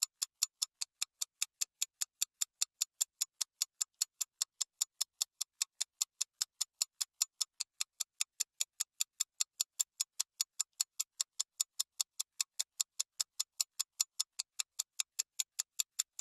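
Clock-ticking sound effect laid over fast-forwarded footage: sharp, high, perfectly even ticks at about four a second.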